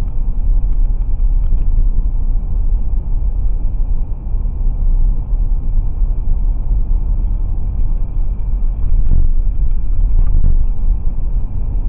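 2017 Toyota 4Runner driving at road speed: a steady low rumble of tyres, road and engine heard inside the cabin, with a faint steady high whine. It is recorded through a cheap dash cam's built-in microphone, so it sounds muffled, with no treble.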